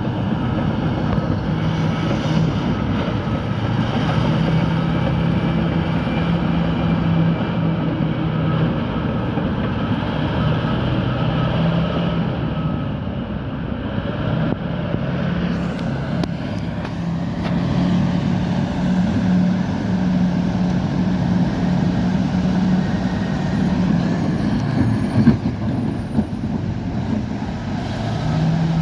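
Bulldozer's diesel engine running steadily at working revs, its pitch dipping and rising a little, over the continuous metal clatter of its tracks.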